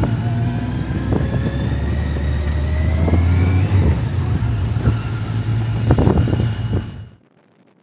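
Motorcycle engine under way, its pitch rising steadily as it accelerates for about three and a half seconds, then running on over a heavy low rumble of wind and road noise. It cuts off suddenly about seven seconds in.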